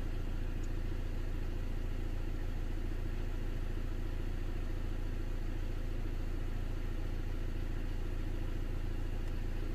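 2013 Ford Transit's diesel engine idling steadily, heard from inside the cab.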